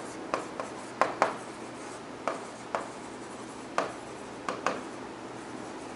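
Handwriting on a writing board: a string of short, irregular taps and scratches from the individual pen strokes.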